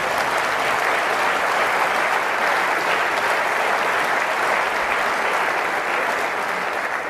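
Audience applauding: a steady, dense wash of many hands clapping that dies away near the end.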